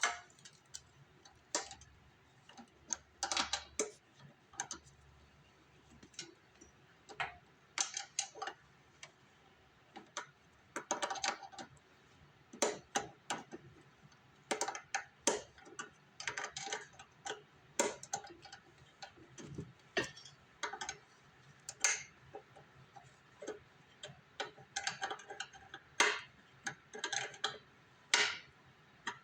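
Open-end wrench working a carburetor mounting bolt on an MTD two-stroke snow blower, sounding as irregular runs of short metal clicks with pauses between them as the bolt is tightened.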